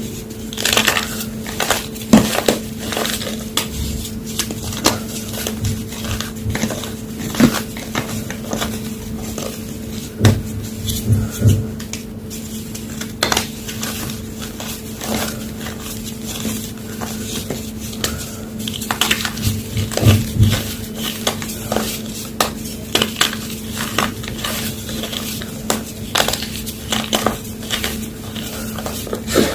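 Homemade gym chalk block being crunched and crumbled, a run of irregular dry crackles and snaps with a louder crunch every few seconds. A steady low hum runs underneath.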